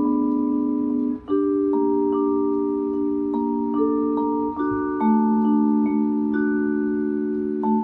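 Korogi vibraphone played with four soft mallets: long ringing chords under a slow melody line. The ringing briefly cuts off about a second in and again near the end as new chords are struck.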